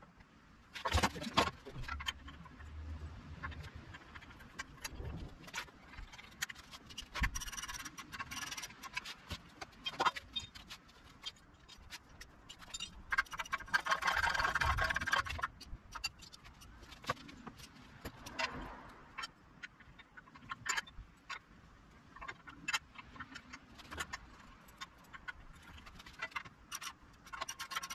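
Hand tools working on the steel of a log splitter's hydraulic ram mount as its bolts are fastened: scattered metal clicks and clinks, with a longer run of fast clicking a little past the middle.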